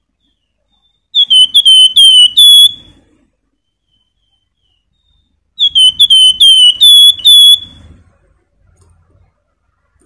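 Caged Javan fulvetta (wergan jawa, 'flamboyan') singing its whistled song. It sings two loud phrases, each about two seconds long, of five or six quick, clear notes that each slur downward, with a pause of about three seconds between them.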